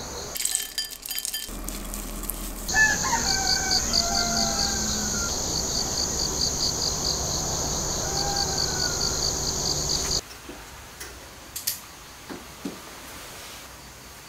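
A rooster crowing twice, about three seconds in and again about eight seconds in, over a steady, evenly pulsing high chirring. Both cut off together about ten seconds in, leaving a few soft clicks.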